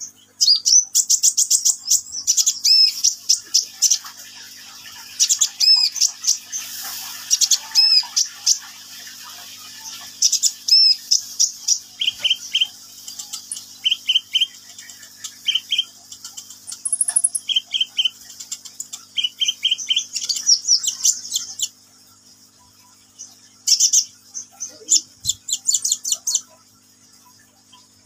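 Kolibri ninja sunbird singing in its cage: rapid runs of high, thin chirps and trills in repeated bursts, with a short pause about two-thirds of the way through.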